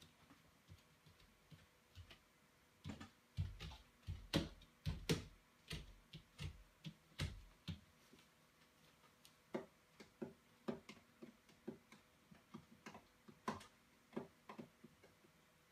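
Faint irregular clicks and ticks, a few of them with a low thud, bunched mostly from about three to seven seconds in and scattered again later.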